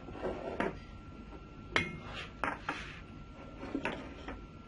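Knife scoring cuts into a whole raw chicken, with a few separate light knocks and clicks as the blade meets the surface beneath.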